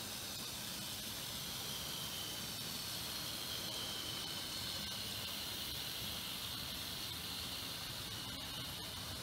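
The tiny electric motors of Z-scale model locomotives give a high whine over a steady hiss. The whine's pitch drifts slowly upward over the first few seconds as the trains run.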